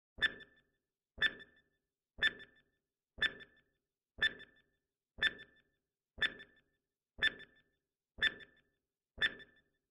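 Countdown timer sound effect: a sharp tick with a brief ringing pitch, once a second, ten times in a row.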